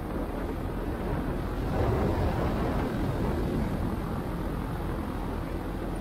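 Steady rush of wind and engine noise from a paramotor in flight, swelling slightly about two seconds in.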